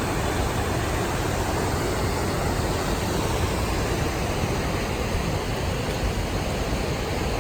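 Steady rush of flowing water, a mountain stream or cascade running at an even level.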